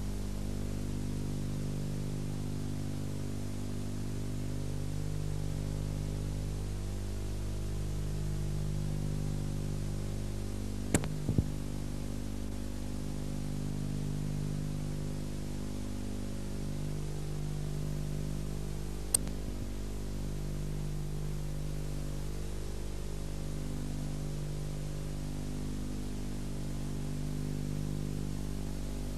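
Steady electrical hum with tape hiss from an old video recording, with no game sound to be heard. Brief sharp clicks come twice, about 11 seconds in and again near 19 seconds.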